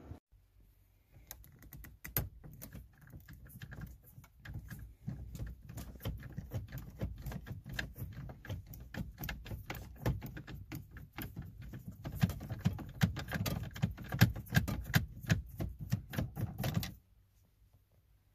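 Dense, irregular clicking and rattling as the stock shift knob is twisted off a Toyota Prius's stubby dashboard shifter, hard plastic ticking against plastic. It stops suddenly near the end.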